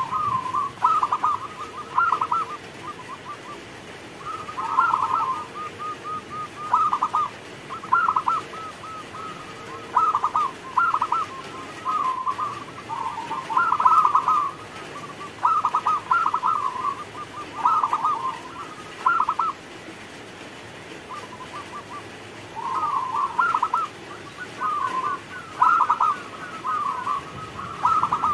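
Zebra dove (perkutut) singing its cooing song: quick runs of rippling, staccato coos repeated every second or two, with a pause of about three seconds about two-thirds of the way through.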